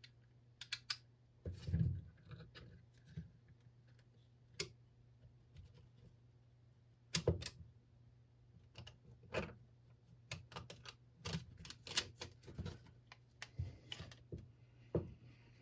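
Scattered, irregular light clicks and small knocks of hard plastic as the recoil starter pulley and its pawls are turned and worked by hand in the housing, busier in the second half.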